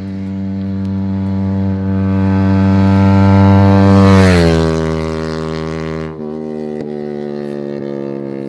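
Yamaha MT-15 single-cylinder motorcycle engine passing at full speed: the engine note grows louder as it approaches, drops in pitch as it goes by about four seconds in, then runs on at a lower pitch.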